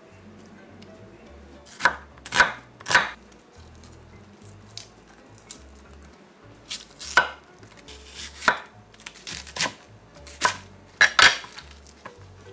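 Kitchen knife cutting a Korean green onion (daepa) on a wooden cutting board: about nine sharp, crisp cuts at irregular intervals, with a quick pair near the end.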